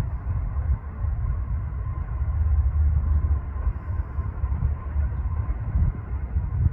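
1981 Cessna 172P Skyhawk's four-cylinder Lycoming O-320 piston engine and propeller running, a steady low rumble with a faint steady tone above it.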